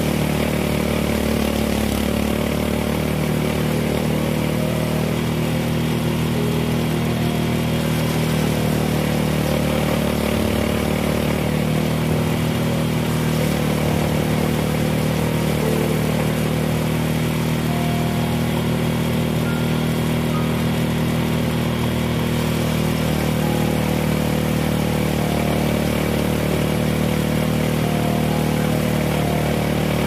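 Small engine of a rice harvester running steadily, with no break throughout.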